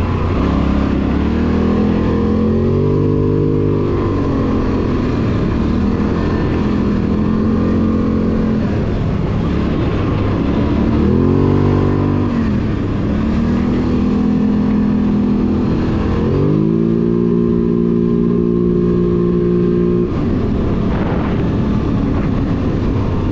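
Polaris Sportsman 850 ATV's parallel-twin engine pulling along a dirt trail, its revs climbing and falling several times with the throttle. Late on it holds high and steady for a few seconds, then drops off, over a steady rushing noise.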